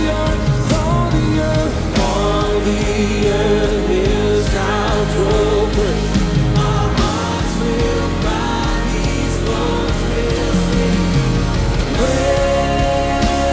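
Live worship band playing a song, with a singer's voice over the instruments.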